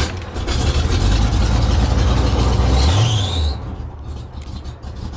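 Chevy 350 V8 in a 1981 G30 box van starting up: it runs loud, revs up about three seconds in, then drops back to a quieter idle.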